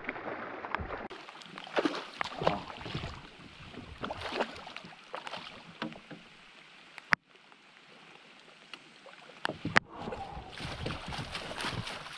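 Irregular splashing and sloshing of water as a hooked largemouth bass thrashes beside a fishing kayak and is landed with a net, mixed with rustles and knocks of handling. There are two sharp clicks in the second half.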